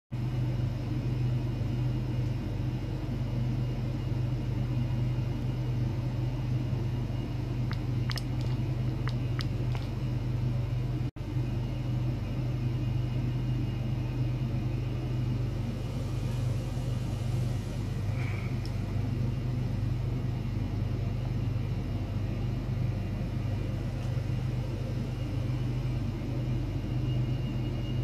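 A steady low electrical or mechanical hum from the running bench equipment, with a few faint ticks and a brief cut-out about a third of the way in.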